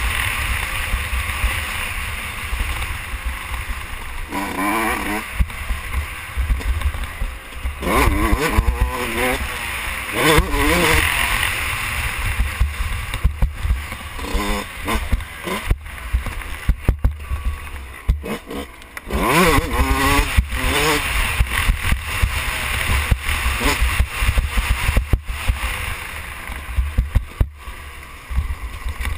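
Yamaha YZ125 two-stroke single-cylinder engine revving up and falling off again and again while the bike is ridden, with heavy wind rumble on the helmet-mounted microphone.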